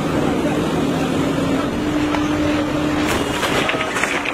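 JCB backhoe loader's diesel engine running steadily at close range, its pitch stepping up slightly about two seconds in. A few short knocks sound near the end.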